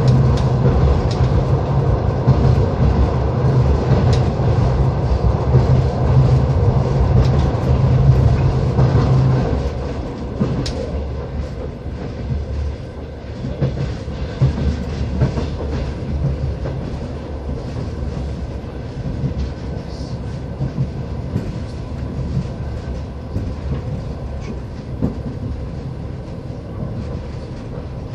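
Passenger train running, heard from inside the carriage: a steady rumble of the wheels on the track. A low hum that is there at first stops about ten seconds in, and the running noise then gets quieter.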